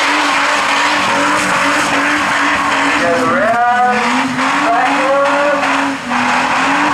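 Red Holden Commodore doing a burnout: its engine is held at high revs with wheelspin on wet concrete, and the note wavers. The pitch rises briefly about halfway through, and the sound eases off for a moment near the end.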